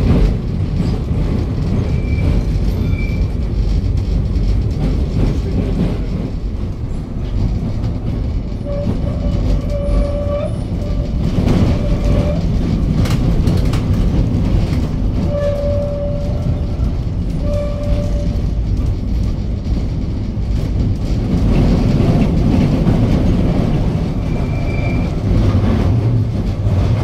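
Historic tram running along city tracks, heard from inside its wooden car: a steady rumble of wheels and motor with scattered knocks over the rails, and a few short high tones now and then.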